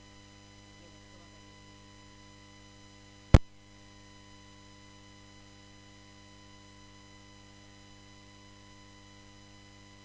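Steady electrical hum with many even overtones, and a single sharp click about three seconds in.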